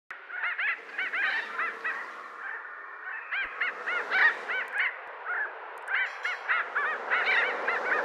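A flock of thick-billed parrots calling: many harsh, overlapping squawks, each rising and falling in pitch, several a second.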